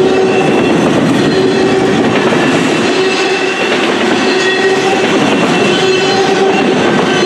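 Double-stack intermodal well cars rolling past at close range: a loud, steady rumble of steel wheels on rail, with thin squealing tones from the wheels coming and going.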